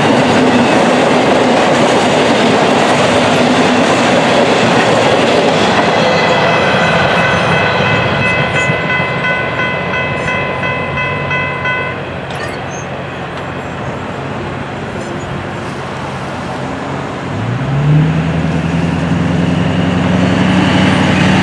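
The tail of a freight train's empty flatcars rolling past with wheel clatter, fading as the last car goes by; a steady high ringing tone sounds through the middle and cuts off suddenly. Near the end a road vehicle's engine rises in pitch as it pulls away.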